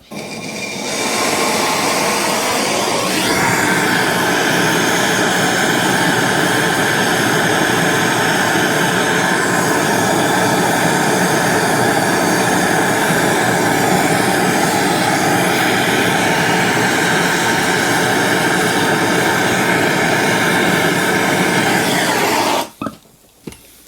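Plumber's gas blowtorch flame burning steadily with a loud rushing hiss, heating a 22 mm copper pipe joint for soldering. It comes up within the first second and shuts off suddenly near the end.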